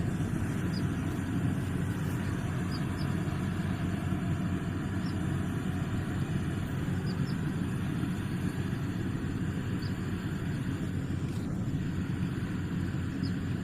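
Rice combine harvester running steadily in the field, a continuous low machine drone that stays even throughout.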